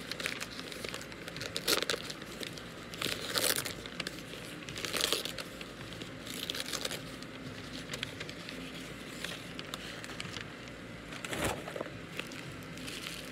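Tissue paper wrapping being handled and unwrapped from around a plant, crinkling and rustling in irregular bursts.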